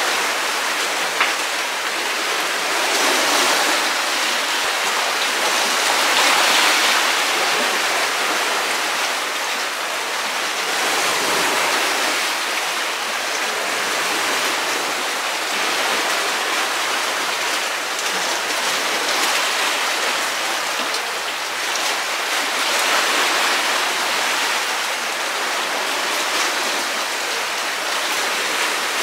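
Water rushing and washing in a steady hiss that swells and eases every few seconds.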